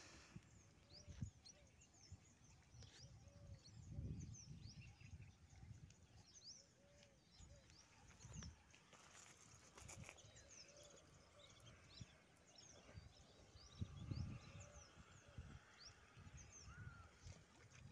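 Faint outdoor ambience of many short, high bird chirps scattered throughout. Irregular low rumbles of wind on the microphone come and go, the strongest about four, eight and fourteen seconds in.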